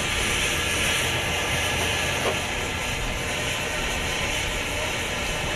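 Steady hiss of steam from a steam traction engine, with a low rumble beneath.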